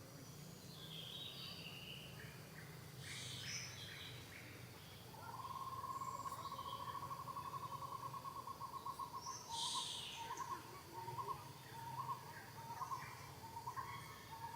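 Bird calls: a steady, even trill starts about five seconds in, lasts a few seconds, then breaks into short repeated notes, with a few higher chirps scattered around it.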